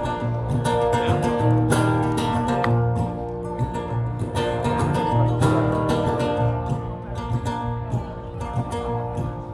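Live acoustic guitar played as a song's intro, with picked notes and strummed chords over a steady low bass note.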